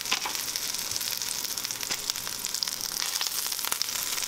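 Breaded fish pieces frying in hot oil in a stainless steel pan: a steady sizzle with many small crackling pops, as the fried-through pieces are lifted out.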